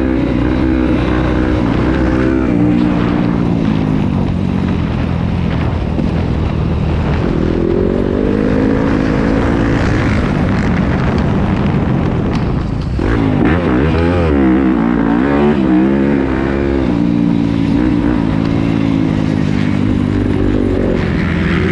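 Yamaha YZ250F single-cylinder four-stroke motocross engine running under load on a dirt track, its revs rising and falling again and again with throttle and gear changes, with a brief drop about 13 seconds in.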